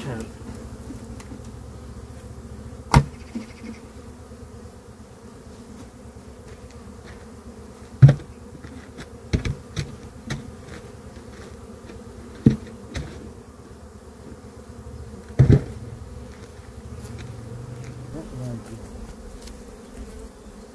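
Honey bees buzzing steadily around open hives, with about five sharp wooden knocks as hive boxes and frames are handled. The loudest knock comes about eight seconds in.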